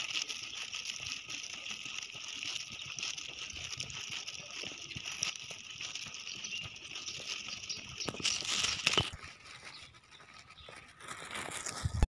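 Outdoor ambience while walking on asphalt: a steady high hiss with faint footsteps. About eight seconds in comes a louder rustle lasting about a second, then it goes quieter.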